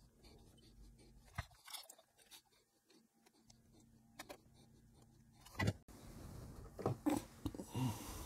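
Faint, scattered small clicks and taps of hand soldering, the iron tip and solder touching component leads on a circuit board. About five and a half seconds in comes a sharp knock, then louder rustling handling noise with a few more knocks.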